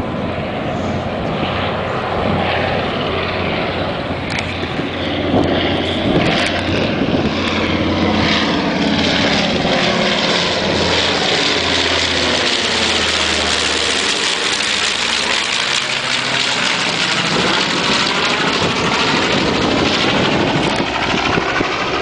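B-25 Mitchell bomber flying overhead, its two Wright R-2600 radial engines droning. The sound grows louder about five seconds in and holds steady as the plane passes over.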